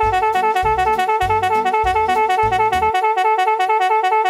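A very loud horn, rated at 170 dB, sounding one steady tone with a rapid, even warble. Under it, a background music bass beat stops about three seconds in.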